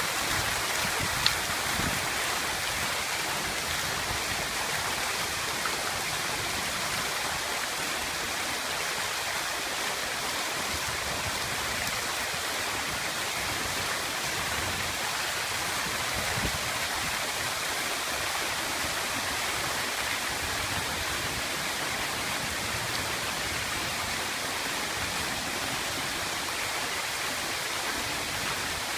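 Water-wall fountain: sheets of water falling down a stone-faced wall and splashing into a shallow basin, a steady rush.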